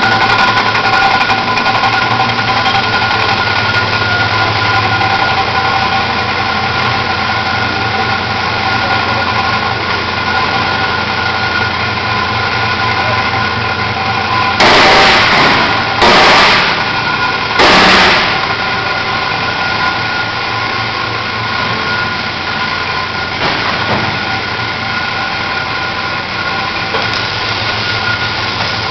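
Steady machinery running in a steel fabrication shop: a constant din with a low hum and several held tones. About halfway through, three short, loud bursts of hiss cut in, each lasting about a second.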